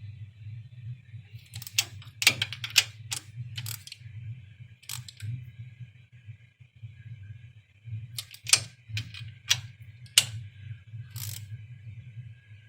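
Hand wrench clicking and clanking on the 14 mm axle-end bolts as they are tightened, in two bursts of sharp metal clicks, over a steady low hum.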